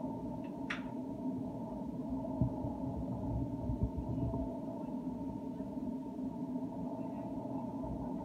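Steady low droning hum, with a short click just under a second in and a few soft low thumps about two and a half and four seconds in.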